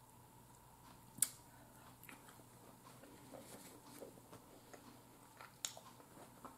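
Quiet eating sounds of a person eating a crab boil: faint chewing with scattered small clicks and taps, the sharpest about a second in.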